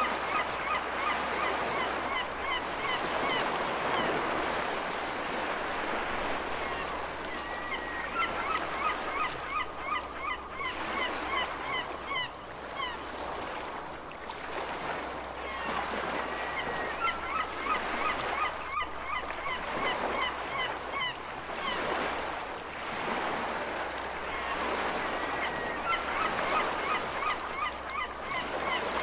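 Ocean waves with a steady rush, overlaid by seagulls calling in quick bouts of short cries that come back every eight or nine seconds.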